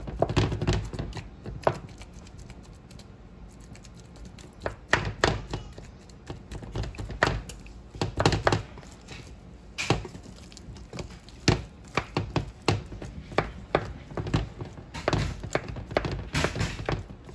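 Wooden spoon mashing boiled potatoes in a metal pot: irregular soft thunks and knocks against the pot, coming in clusters.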